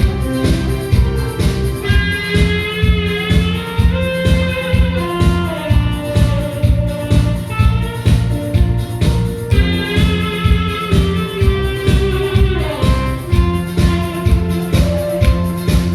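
Instrumental music: a guitar melody over a backing track with a steady drum beat, about two beats a second.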